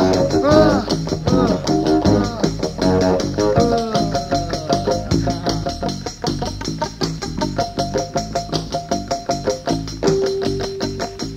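Blues-rock band recording with electric guitar, bass and drums: bending notes at first, then a quick, steady beat under sustained notes, with a lower held note near the end.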